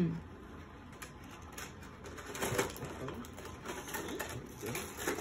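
Light plastic clicks and rattles of a toy art-set carrying case being unlatched and opened, with a few soft wordless voice sounds, the loudest about halfway through.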